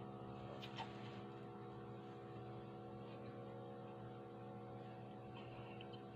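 A steady, faint electrical hum of several fixed tones, with a few soft clicks from a person chewing a shawarma wrap, about a second in and again near the end.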